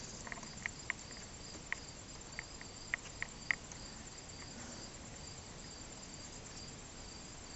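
A scattering of light, sharp clicks in the first few seconds, about ten in all, as small parts of a KDX200 shifter mechanism are handled and moved during inspection; after that only a faint steady background.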